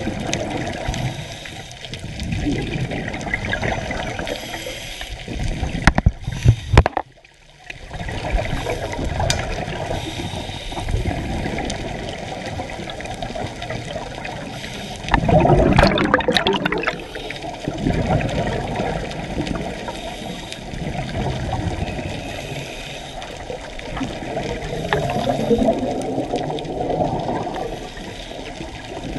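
Underwater sound on a diving camera: a continuous muffled rush of water with scuba regulator exhaust bubbles bubbling up in bursts, the loudest about halfway through. A few sharp knocks about a quarter of the way in.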